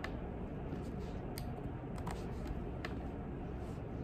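A handful of separate clicks from a computer mouse, spaced irregularly, over a steady low background hum.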